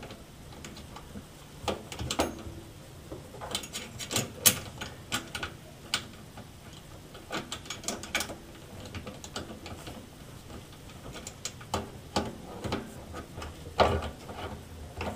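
Plastic drain nut on a garbage disposal's drain tailpiece being turned by hand: irregular clicks and scrapes of plastic threads, with knocks from the plastic pipe being handled.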